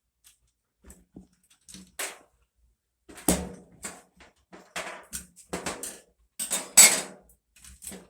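A string of irregular knocks and clatters of hard objects being handled and set down, growing busier after about three seconds, with the loudest clack just before seven seconds in.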